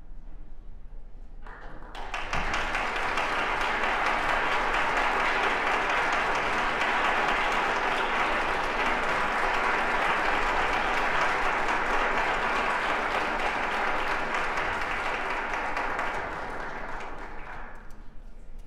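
Audience applauding, starting about two seconds in, holding steady, and dying away near the end.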